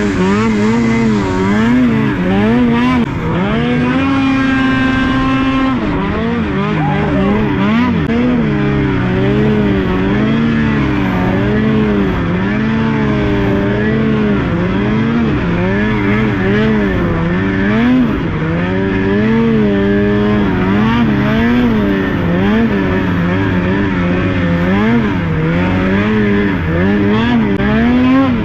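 Snowmobile engine running hard under a varying throttle, its pitch rising and falling constantly as the sled is ridden through deep powder. A few seconds in, the engine holds a steady higher pitch for about two seconds.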